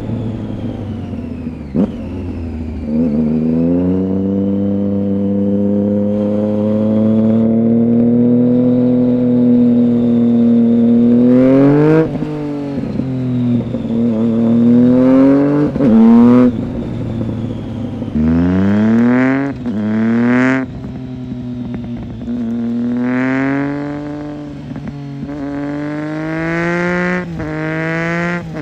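Triumph Street Triple 675's inline three-cylinder engine through a Roadsitalia aftermarket exhaust with one dB killer fitted. It holds a steady pitch for several seconds, then rises quickly in pitch several times, each rise ending in a sharp drop.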